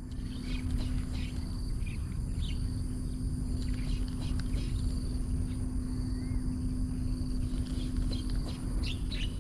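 Outdoor lakeside ambience: a steady low wind rumble on the microphone and a steady low hum, with scattered short, faint bird chirps and one small rising-and-falling call about six seconds in.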